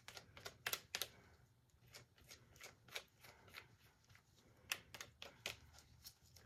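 Silicone spatula scraping and tapping inside a plastic pouring bowl, a faint run of irregular clicks.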